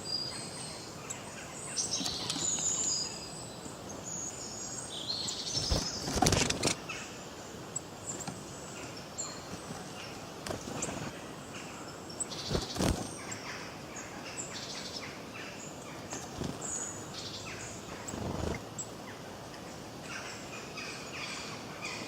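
Several forest songbirds chirping and trilling in overlapping short calls, with three brief louder rushes of noise about six, thirteen and eighteen seconds in.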